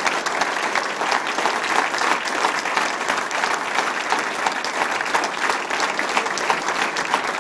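A roomful of people giving a standing ovation: steady, dense hand clapping.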